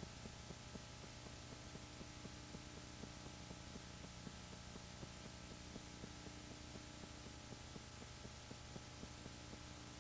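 Faint steady hum with light, rapid ticking running through it.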